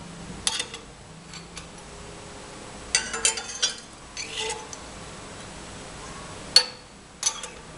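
Metal nozzle attachments of a hot air gun clinking as they are picked up and handled. The clinks are scattered, with a cluster about three seconds in and a sharp one near the end.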